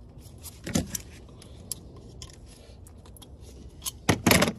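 Hand tools and metal parts clinking and knocking during hands-on work on a car engine: scattered light clicks, a knock about a second in, and a louder cluster of rattling knocks near the end.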